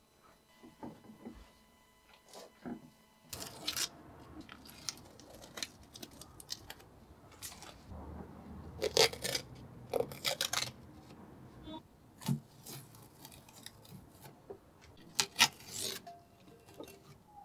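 Workbench handling of cast metal bench grinder parts: rustling and tearing of masking tape with light clicks. Several sharp knocks as parts are set down on the wooden bench, the loudest about nine, ten and fifteen seconds in.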